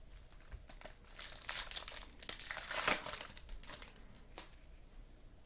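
Crinkling foil wrapper of a trading card pack being torn open and handled, a crackly rustle lasting about three seconds, loudest near the end, with a few small clicks around it.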